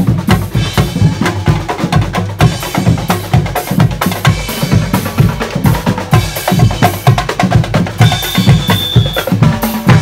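Street drum band of bass drums, snare drums, tom sets and crash cymbals playing a steady marching beat. Near the end a whistle is blown once for about a second over the drumming.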